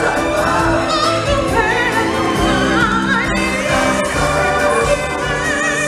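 Live stage-show song: an amplified singer holds notes with a wide vibrato over choir and backing music.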